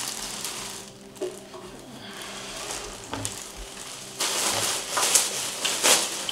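Clear plastic bag crinkling and rustling as it is handled and pulled open. It is quieter in the middle and denser and louder from about four seconds in.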